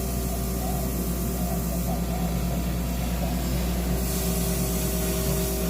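Vuze 6040 laser CNC machine running while it cuts cardboard: a steady mechanical hum with faint shifting whines as the cutting head moves.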